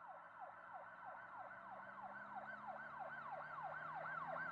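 A fast siren yelp: quick rising-and-falling sweeps, about three a second, that grow steadily louder.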